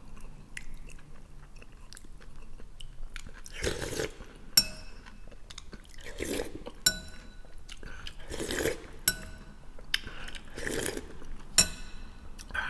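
A metal spoon clinking against a bowl and borscht being slurped from the spoon, about four times at a steady pace, with chewing in between.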